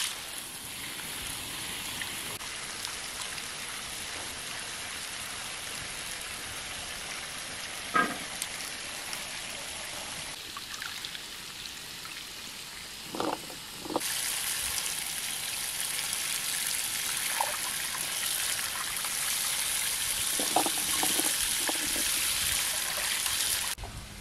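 Water trickling and splashing in a basin as red berries are rinsed and scooped out by hand, with a few short knocks.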